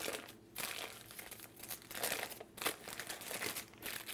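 Thin plastic wrap crinkling as it is pulled and peeled by hand off a soft ball of chilled cookie dough, in irregular crackles with short pauses.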